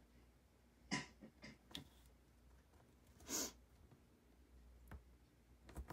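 Faint paper handling on a craft mat: a handful of brief rustles and light taps as a strip of designer paper is positioned and pressed down, in an otherwise quiet room.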